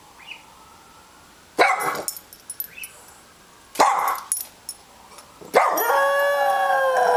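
Dog barking twice, then breaking into a long howl, held and dipping slightly in pitch, a dog's answer to a siren.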